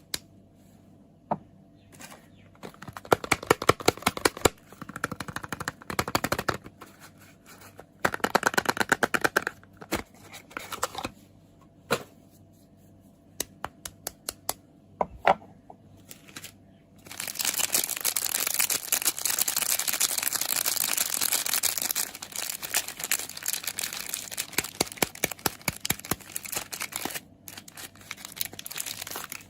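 Soap packaging being unwrapped by hand: crinkling and tearing of the wrapper in bursts, with scattered sharp clicks and taps, and then a long stretch of continuous loud crinkling over the latter half.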